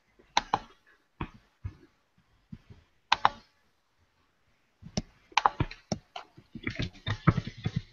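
Typing on a computer keyboard: a few scattered keystrokes, then a quicker run of keys over the last three seconds.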